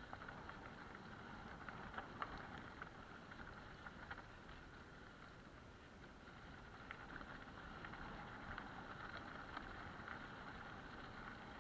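Mountain bike rolling along a dirt and gravel track: steady tyre rolling noise with scattered clicks and rattles as the bike runs over stones.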